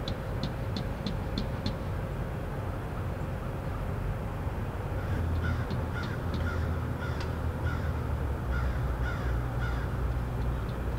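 Crows cawing in runs of short repeated calls: a quick series right at the start and a longer one from about halfway on, over a steady low outdoor rumble.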